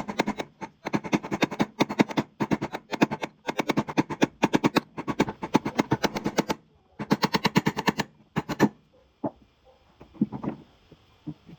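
Impact wrench rattling in two long bursts, hammering bolts loose on an automatic transmission case, followed by a few single knocks of metal parts near the end.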